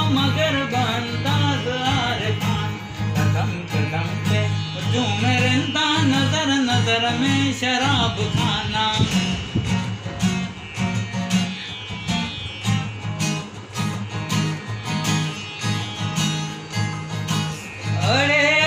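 A man singing to his own strummed acoustic guitar. The singing drops out for several seconds in the middle while the strumming goes on, and comes back in near the end.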